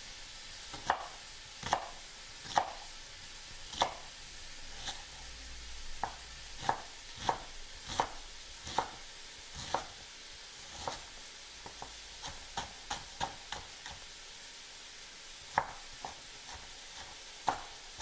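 Kitchen knife chopping on a cutting board: sharp, irregular knocks about once a second, quicker for a moment past the middle, over the faint steady sizzle of meat browning in a pan.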